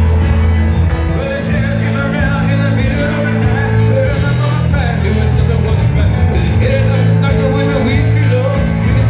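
Loud live band music with a singing voice over held bass notes, from the piano bar's house band.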